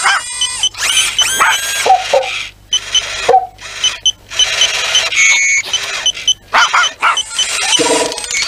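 Cartoon sound effects: a dog yelping and whining in short startled calls, some rising in pitch, over a run of high electronic beeps and chirps.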